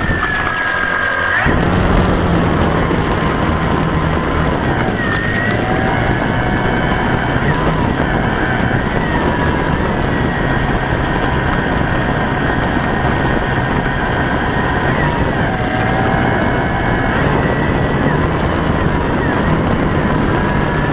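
Brushless electric motor and propeller of an E-Flite Timber RC plane whining, heard from a camera on the plane's belly, with heavy air noise over the microphone. The whine's pitch rises and falls several times with throttle changes.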